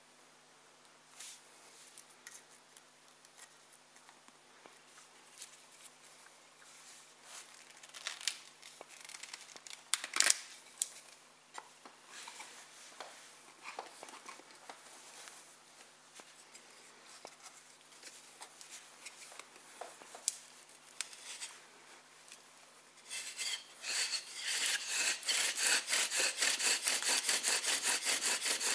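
Wooden bow drill set being handled, with scattered light rubs and knocks of wood and cord. About 23 seconds in, the bow starts sawing back and forth and the spindle grinds in the hearth board's socket with a fast, even rhythm, much louder.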